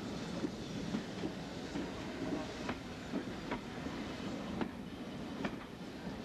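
Railway passenger coaches rolling slowly past with a steady rumble, their wheels clicking over the rail joints about once a second.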